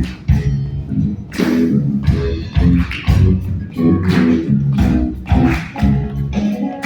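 Guitar music played live, plucked strings with strong low bass notes on a steady beat.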